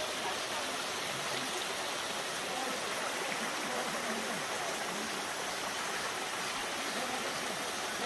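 Shallow mountain stream running over rocks: a steady, even rush of water.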